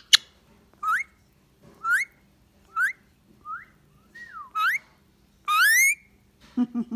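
Indian ringneck parrot giving a series of short whistle-like calls that glide upward, about one a second, with a longer rising call near the end.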